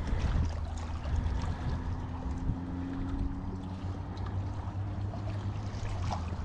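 Wind rumbling on the microphone, with a faint steady hum that rises slightly in pitch through the middle few seconds, and a few light clicks and rustles.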